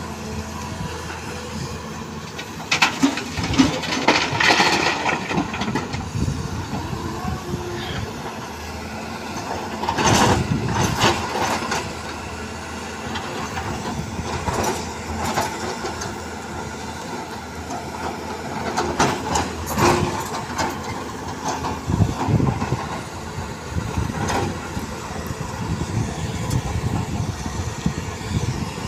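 A Volvo crawler excavator's diesel engine runs steadily under hydraulic load while it digs and loads. Loud clattering of rock and soil against the steel bucket and the tipper body comes in several bursts: about three seconds in, around ten, fifteen, twenty and twenty-two seconds.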